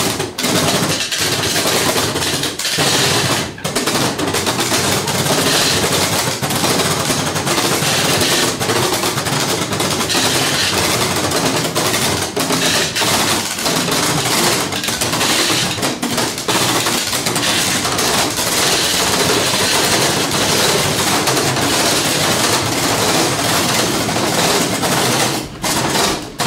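A loud, dense clatter of rapid knocks and rattling that keeps up without a break, then cuts off suddenly.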